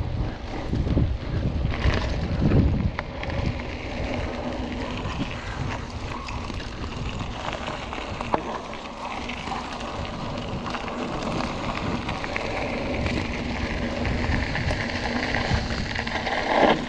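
Wind buffeting the microphone and bicycle tyres rolling over a loose gravel track as the bike rides downhill, with a single sharp click about eight seconds in.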